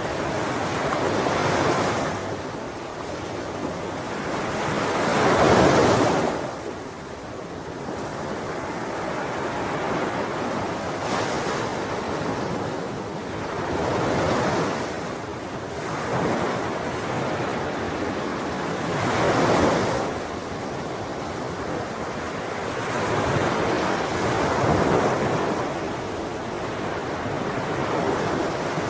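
Sea waves breaking, the surf swelling and falling back every few seconds; the loudest surge comes about five seconds in.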